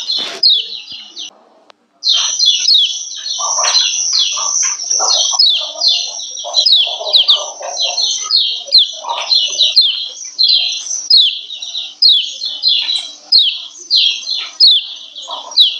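Female kecial kuning white-eye giving its 'ciak ciak' call: a fast, continuous string of high, downward-sliding chirps, several a second, with a brief pause about a second and a half in. Softer, lower chattering calls run underneath.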